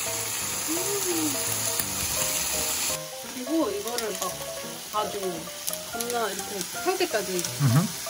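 Chicken thighs frying in a hot pan with a steady sizzle as the fat renders out. About three seconds in, the sizzle changes, and pitched, gliding tones sit over it for the rest.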